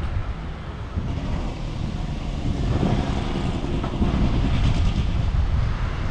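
Wind buffeting the microphone with low rumble while riding a bicycle, getting a little louder about halfway through.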